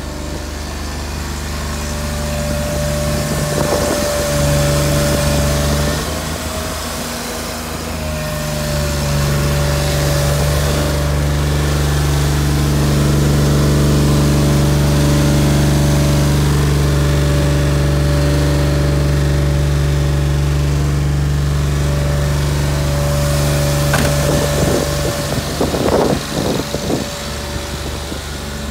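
GMC C7500 bucket truck's engine running steadily at idle, with a thin steady whine over it. The engine gets louder and softer as the listener moves around the truck, and there are a few sharp knocks near the end.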